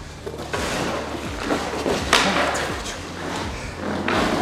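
Ice hockey skate blades scraping and carving into the ice in hard strokes, one about every two seconds, as a skater pushes through backward crossovers. A steady low hum runs underneath.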